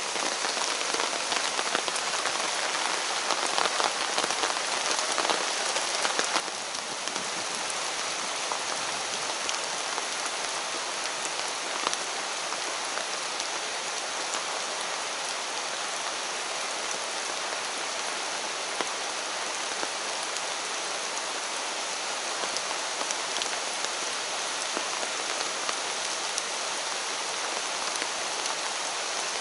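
Steady rain falling through dense forest foliage, a continuous hiss full of small raindrop ticks. It is a little louder and denser for the first six seconds, then settles slightly lower and stays even.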